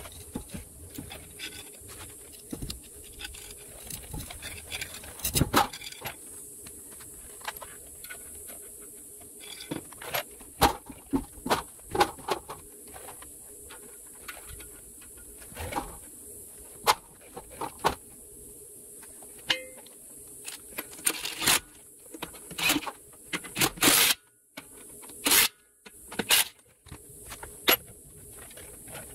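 Scattered metallic clinks and knocks of lug nuts being handled and threaded onto the steel wheel studs of a motorhome's rear wheel by hand. They come in irregular clusters, busier in the second half.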